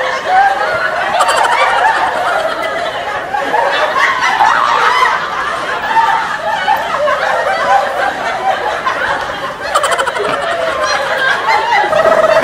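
Canned audience laughter: a laugh track of many voices laughing together, running on without a break.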